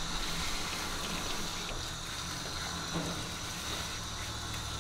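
Steady rush of water from a grooming tub's hand sprayer, spraying over a dog's wet coat and streaming down into a metal tub.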